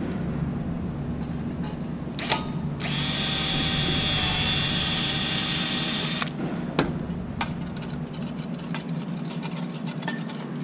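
Cordless drill with a #40 bit running for about three seconds as it drills a rivet hole through 0.040 aluminium sheet, guided by a nut plate drill jig. A click comes just before it, and light clicks and clinks of metal follow as the jig and part are handled.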